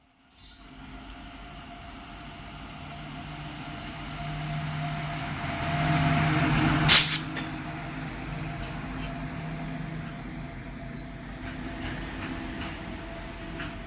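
A large goods train approaching and passing, its steady rumble and hum growing louder to a sharp bang about halfway through. After that the rumble eases off a little, and wheel clicks on the rails come in near the end.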